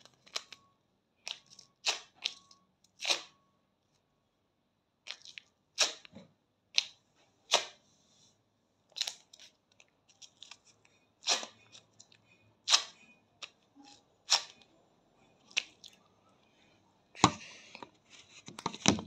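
Short, sharp rips and crackles of ready-to-use wax strips being handled, pressed on and pulled off the armpit, coming irregularly about once a second, with a longer rustle near the end.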